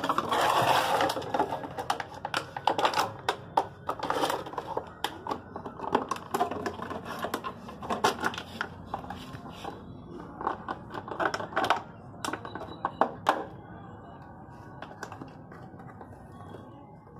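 A dog chewing and biting a plastic water bottle, the thin plastic crunching and crackling in irregular sharp clicks. Loudest right at the start as the dog seizes the bottle, the crackling grows sparser after about 13 seconds.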